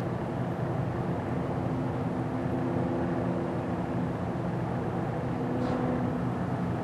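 Steady low rumble of distant engine noise, with a faint hum held at a few steady pitches.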